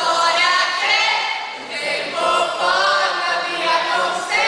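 Voices singing a melody together without instruments, carried over a concert microphone and sound system.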